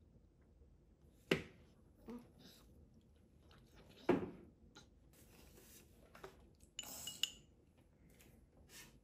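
Tableware being handled and set down on a plastic high-chair tray. There are two sharp knocks, about a second in and about four seconds in, lighter clinks between them, and a short rattling scrape around seven seconds in.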